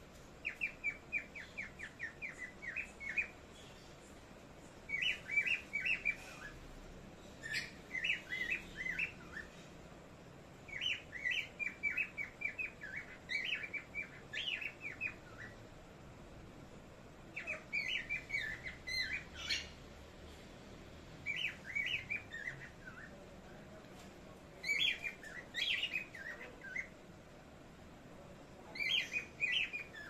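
Small pet parrots chirping in quick runs of short, repeated notes, about eight bursts of one to three seconds each with short pauses between.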